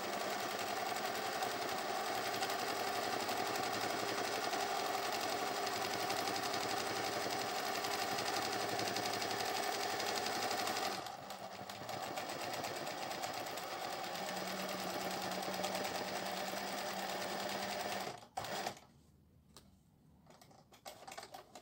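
Singer 20U industrial zigzag sewing machine running steadily as it stitches a tacking line around an appliqué through tear-away stabilizer. It eases off briefly about halfway, runs on, then stops abruptly near the end.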